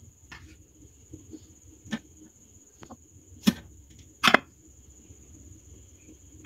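A plastic spatula spreading thick custard over bread slices in a glass baking dish: soft scraping with a few short knocks against the glass, the two loudest about three and a half and four seconds in.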